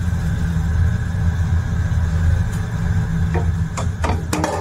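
Steady low machine-like hum, with a few light knocks and clicks near the end.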